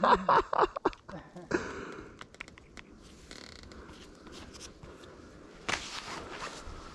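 A man's voice muttering briefly, then faint scattered clicks and rustling, with a breathy hiss about six seconds in.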